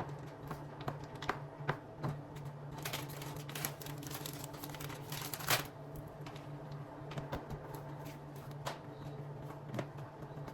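Kitchen work sounds: irregular light clicks and clatter of utensils and dishes, with a few sharper knocks, over a steady low hum.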